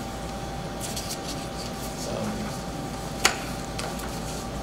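Meeting-room background: a steady low hum under light rustling and small taps, with one sharp click a little over three seconds in.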